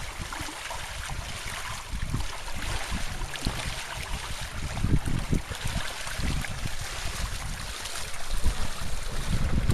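Water rushing and splashing along the hulls of a small wooden trimaran sailing canoe under way, with uneven gusts of wind buffeting the microphone.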